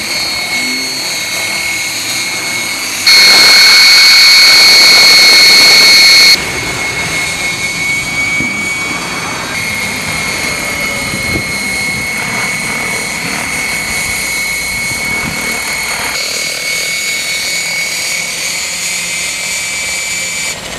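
Radio-controlled Align model helicopter flying, its rotors and motor making a steady high whine. The sound is much louder for about three seconds starting around three seconds in, then drops back, with sudden jumps in level at edit cuts.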